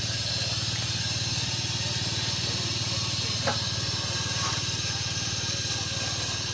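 A 7¼-inch gauge miniature steam locomotive standing in steam, giving a steady hiss of escaping steam over a low steady drone.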